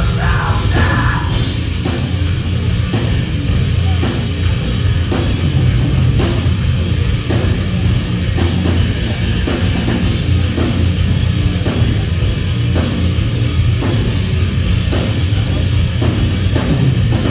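Heavy metal band playing live: distorted guitars, bass and pounding drums at full volume, with the singer's voice dropping out about a second in, leaving the band playing on.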